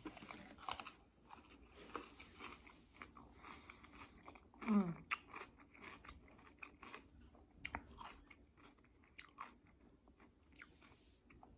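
Close-miked chewing and mouth sounds: a string of small wet clicks, smacks and crunches as food is chewed, with a short falling hum from the eater about halfway through.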